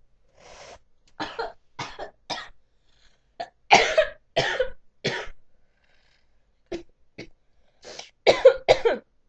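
A young woman coughing hard in several fits after a hit of smoke from a small glass pipe: a breathy exhale first, then short sharp coughs in clusters, loudest a little under four seconds in and again near the end.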